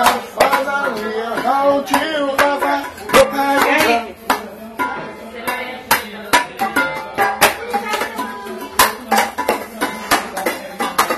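Music with a voice singing a melody over quick, sharp percussion hits.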